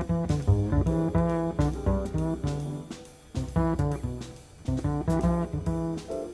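Instrumental jazz-style background music: a run of plucked string notes over a bass line, with the notes fading away between phrases.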